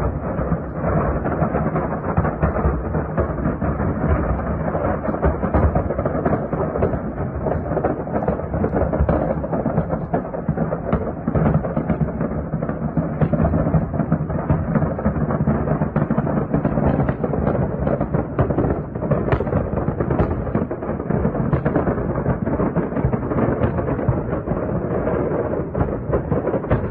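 Munitions in a burning ammunition depot detonating, heard from a distance as a continuous rumble with many small cracks and thuds running together and no single dominant blast.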